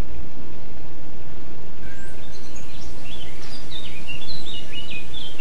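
Steady background hiss, with birds chirping from about two seconds in: quick chirps that glide up and down in pitch.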